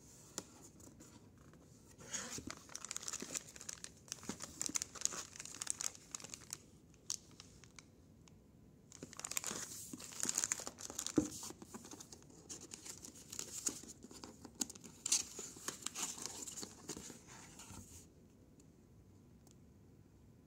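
Thin plastic bag around a laptop charger and cable crinkling as it is handled, in three spells of several seconds each, with one sharp click during the middle spell.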